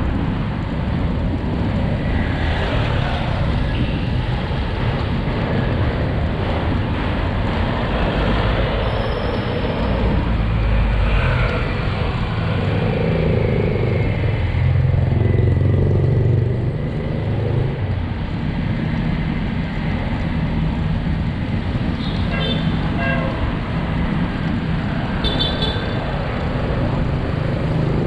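Steady city traffic noise and wind rumble on a bicycle-mounted action camera while riding along a busy street. Vehicles pass, and a few short horn toots sound in the second half.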